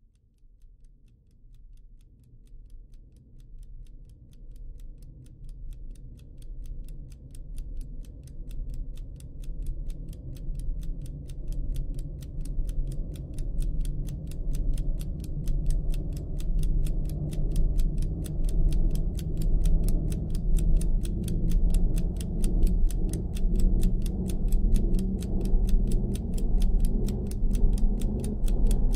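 Suspense film score: a steady clock-like ticking over a low throbbing drone, swelling gradually from very faint to loud.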